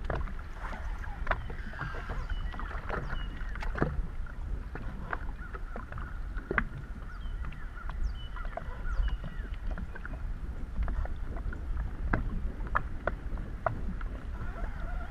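Gusty wind buffeting the microphone as a steady low rumble, with water slapping against the hull of a small fishing boat in irregular knocks.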